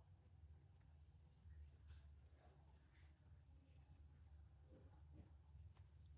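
Near silence: a faint, steady, high-pitched chirring of insects, likely crickets, over a low hum.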